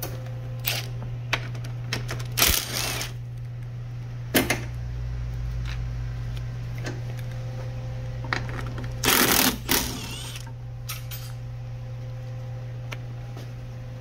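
Hand tools clicking and knocking while the fasteners holding the radiator cooling fan are undone, with louder rattling bursts about 2.5 s and 9 s in, over a steady low hum.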